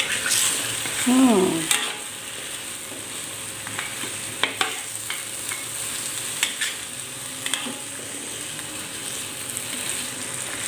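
Metal spatula stirring and scraping chicken and potato chunks in a wok, with steady sizzling and irregular clinks of the spatula against the pan. A brief falling pitched sound about a second in.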